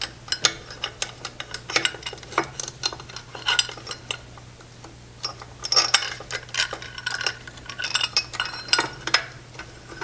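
A muffler clamp and steel mounting plate being fitted around a bicycle frame tube by gloved hands: light, irregular metallic clicks and clinks in two clusters. A faint steady low hum runs underneath.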